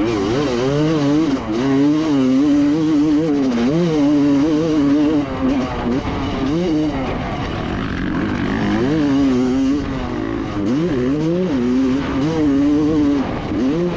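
Two-stroke motocross bike engine under hard riding, revving up and dropping off again and again as the throttle opens and shuts and the gears change.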